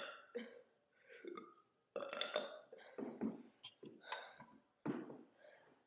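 A woman burping several times in a row: a string of short belches about half a second to a second apart, the loudest ones around two seconds in.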